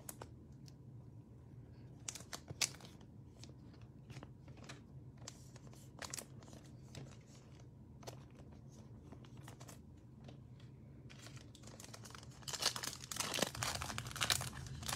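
Faint, scattered clicks of trading cards being handled, then near the end a foil basketball-card pack wrapper being torn open, crinkling.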